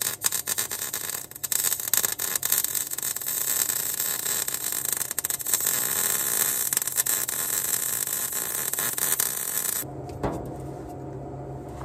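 Arc welding motor mounts onto a steel truck frame: a steady crackle dense with fine pops that stops suddenly about ten seconds in, leaving a low steady hum.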